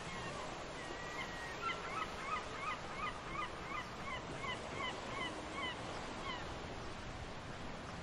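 A gull giving its long call: one drawn-out note, then a run of short falling calls at about three a second that stops a couple of seconds before the end.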